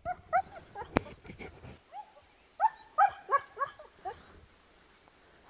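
A Czechoslovakian wolfdog giving short, high yips and whines in quick runs, a few right at the start and a longer string from about two to four seconds in: the excited calling of a harnessed dog eager to start pulling. A single sharp click about a second in.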